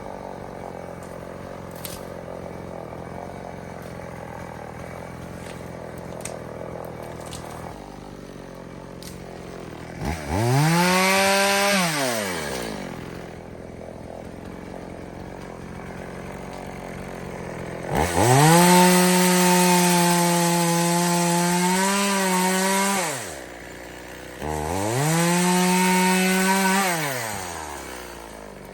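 EFCO two-stroke chainsaw idling, then revved up to full throttle three times, about ten, eighteen and twenty-five seconds in, each held for two to five seconds before dropping back to idle.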